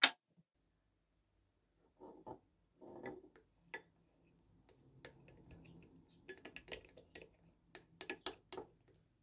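Small plastic spatula clicking and scraping against a glass bowl while stirring a thin slime mixture that has failed to come together. Irregular taps, with a sharp click at the very start and the busiest run of clicks in the last few seconds.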